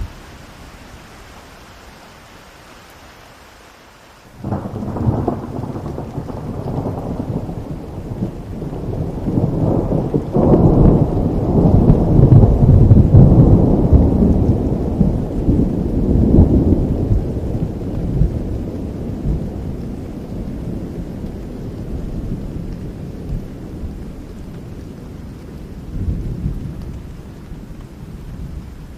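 Steady rain with a long roll of thunder that breaks in suddenly about four seconds in, grows to its loudest near the middle and slowly rumbles away, with a smaller rumble near the end.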